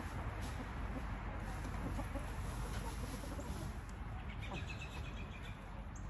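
Chickens clucking, with a short run of quick, higher-pitched repeated calls about four and a half seconds in, over a low steady rumble.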